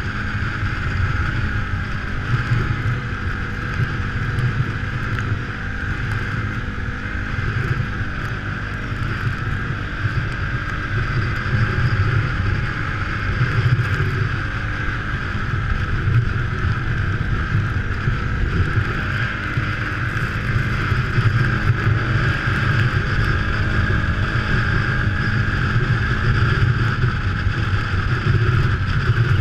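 Engine of a small off-road vehicle running steadily at trail-cruising speed on packed snow, a deep rumble with a constant higher whine, with wind buffeting the microphone.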